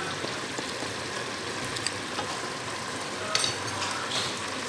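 Chicken liver and gizzard stew sizzling steadily as it simmers in sauce in a non-stick pan. A spatula stirs it and knocks against the pan a few times, loudest a little past the middle.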